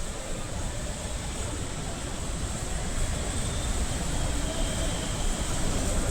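Floodwater of the swollen Musi river rushing steadily: a continuous low rumble with a hiss over it, growing slightly louder toward the end.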